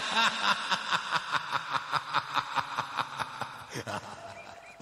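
A voice laughing in quick, evenly spaced ha-ha pulses, about four a second, fading away toward the end.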